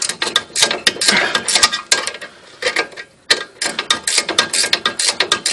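Ratcheting wrench clicking rapidly as it turns the nut on a stabilizer end link, with a short pause a little over two seconds in before the clicking resumes.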